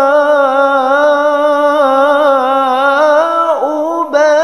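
Male voice reciting the Qur'an in melodic tilawah style, drawing out one long vowel with small wavering ornamental turns, processed with an added echo effect. Near the end the held note breaks off briefly and a new phrase begins.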